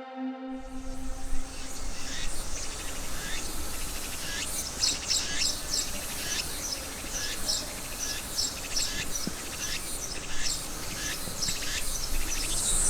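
Small birds chirping in short repeated calls over steady outdoor background hiss. Near the end a high, steady insect buzz sets in.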